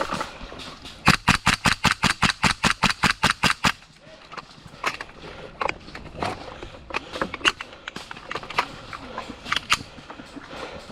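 Airsoft gun firing a rapid string of shots, about six a second for nearly three seconds, followed by scattered fainter snaps and clicks.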